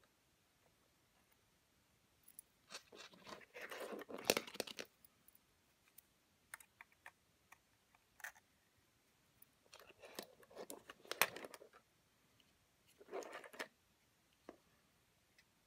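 Close-up clicks, taps and scraping of small plastic and metal parts as a disassembled Sony SDR-SR200 camcorder and its LCD panel housing are handled with fingers and tweezers at a flex cable. The sound comes in three short clusters with quiet gaps between.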